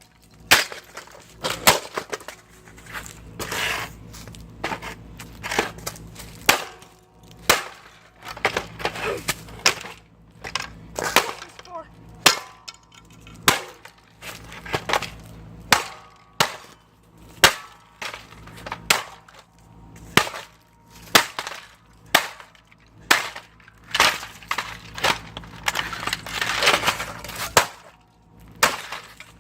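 A portable CD radio being hit and smashed over and over: dozens of hard blows, roughly one or two a second, with cracking and breaking in between.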